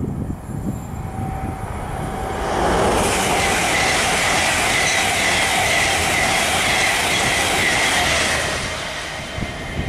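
LNER Azuma high-speed train passing at speed: a rush of wheel and rail noise with a steady high whine, swelling about two and a half seconds in and fading near the end.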